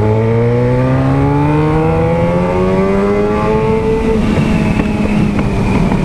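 Yamaha XJ6's inline-four engine with an aftermarket sport exhaust, accelerating with its pitch climbing steadily, then easing off about four seconds in and running on at a steadier, rougher note.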